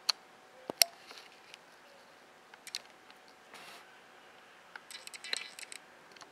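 Handling noise: scattered sharp clicks and small knocks, two loud ones just before a second in, a short hiss about three and a half seconds in, then a quick rattling run of clicks about five seconds in, over faint room hiss.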